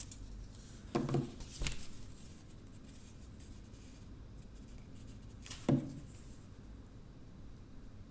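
An LG G5 phone and its detachable bottom battery module being handled as someone grips it and tries to pull the module out: a couple of short plastic clicks and knocks about a second in and another near six seconds, with faint rubbing and fiddling in between.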